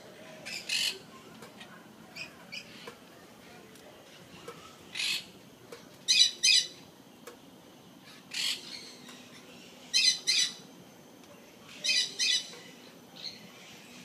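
Golden conures squawking: short, harsh, loud calls every second or two, several of them in quick pairs.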